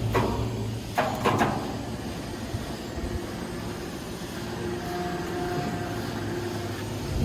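A machine engine running steadily with a low hum, with a few sharp knocks about a second in.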